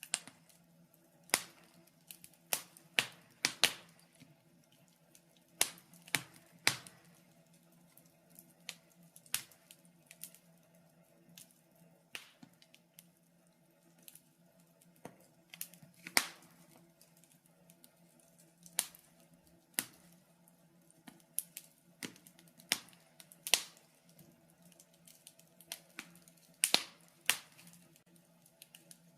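Fire in a fireplace crackling, with irregular sharp pops every second or so over a low steady hum.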